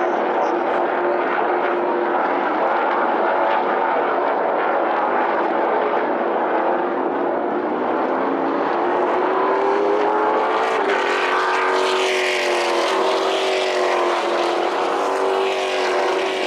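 NASCAR México stock cars' V8 engines running at racing speed, several at once. Their engine note climbs in pitch past the middle and then glides down again as cars go by.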